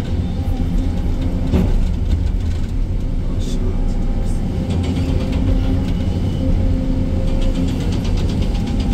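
Diesel engine of an excavator running steadily, with a single sharp knock about a second and a half in.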